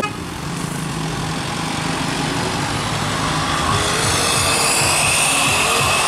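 Road traffic: vehicle engines running, growing steadily louder as a tour minibus and a motorcycle come close, with a faint steady high tone in the second half.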